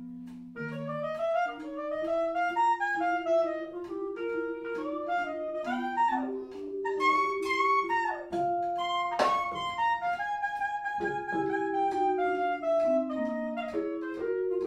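Live jazz: a clarinet plays a running melodic line over a small band, with vibraphone, bass and drums keeping time underneath.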